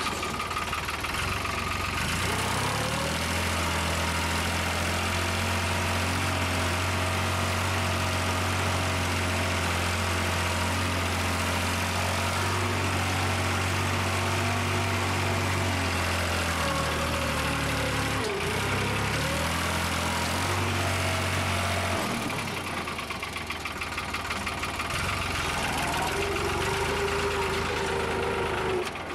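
New Holland tractor's diesel engine running steadily while pulling a tine cultivator through tilled soil. Its note rises a couple of seconds in, dips briefly and recovers about two-thirds of the way through, then drops off for a few seconds before climbing again near the end.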